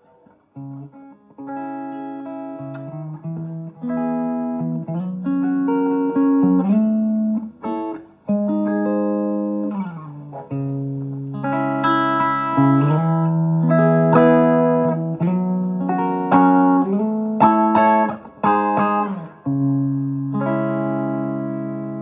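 Vermona Regent 300 K electronic organ playing held chords over a sustained bass line, with a rise and a fall in the bass between notes. It ends on a long chord with a fast pulsing tremolo.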